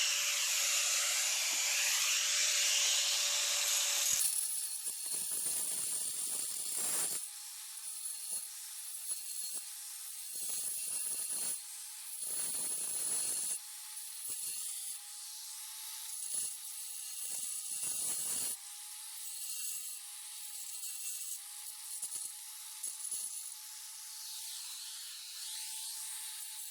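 Hitachi angle grinder cutting into a crack in a concrete slab to widen it to about a quarter inch for sealant. The motor runs with a steady whine and a harsh grinding noise for the first four seconds; then the whine steps up in pitch and the grinding comes and goes in short passes.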